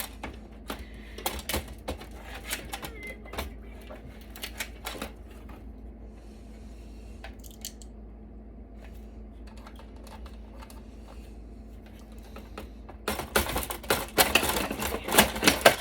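Sharp clicks and light metallic clatter of server parts being handled and pried loose during dismantling, scattered at first, going quiet in the middle, then a dense burst of rattling near the end.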